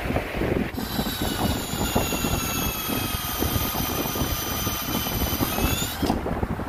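Cordless drill motor whining at a steady speed for about five seconds, rising slightly just before it stops, over a rough low rumble.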